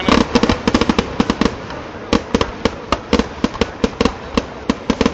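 Temple-festival firecrackers going off in a rapid, irregular string of sharp bangs, several a second, some louder than others.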